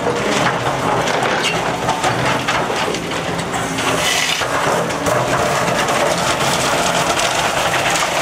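Broken concrete grinding, cracking and clattering under a Liebherr R944C excavator's steel bucket as it is worked into a rubble pile, a dense run of small cracks and knocks. The excavator's diesel engine runs steadily underneath.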